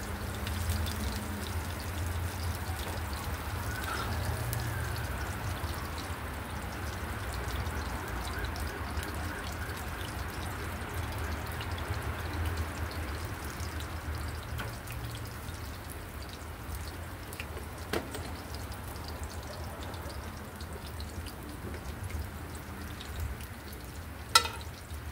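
Oil sizzling and crackling steadily in a cast iron frying pan as food fries, over a low hum. A small click about two-thirds of the way through and a sharp knock near the end.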